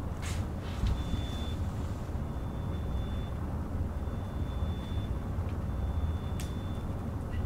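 A steady low rumble of room noise, with a marker writing on a whiteboard over it: a few stretches of faint thin squeak and two faint taps.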